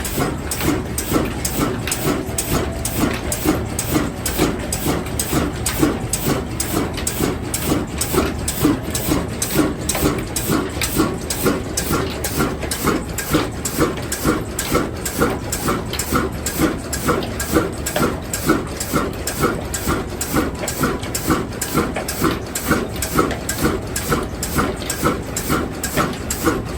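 Diesel engine running at a slow, even beat, about two and a half beats a second.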